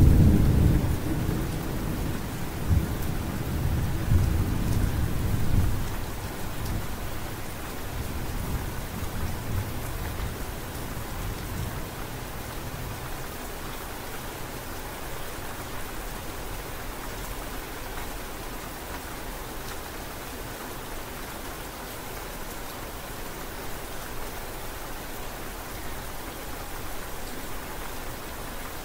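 Steady rain falling, with a low rumble of thunder over the first few seconds that fades out about six seconds in.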